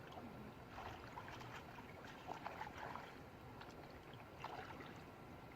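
Water splashing and trickling: a steady wash with a scatter of small splashes, bunched in the first half and again near the end.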